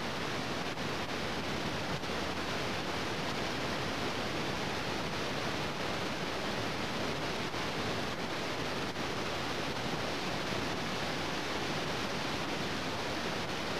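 Steady even hiss with no change in level, with a few faint ticks.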